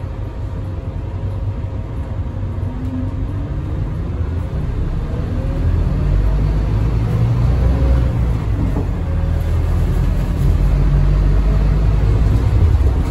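Scania K320UB hybrid bus heard from inside the cabin while under way: a whine rises in pitch over a few seconds, then the low rumble of its Scania DC9 five-cylinder diesel grows louder from about halfway through as the bus picks up speed.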